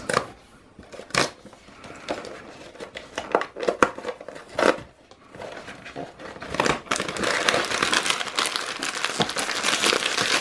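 A box of toddler rice cookies being opened and the plastic-wrapped packets inside handled: a few separate taps and rustles at first, then steady crinkling of plastic wrappers from about seven seconds in.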